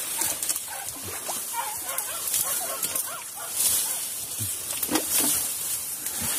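Short, scattered animal cries among the rustle of grass stalks brushing the camera, over a steady high hiss.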